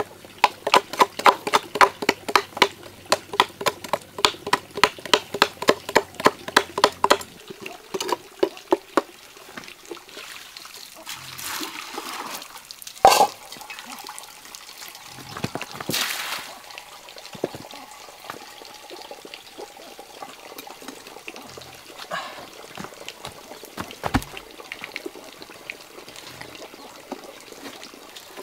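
Blade strokes chipping and scraping out the inside of a hollowed wooden log, fast and even at about four a second for the first several seconds. After that come scattered scrapes and knocks on the wood, with one loud knock near the middle.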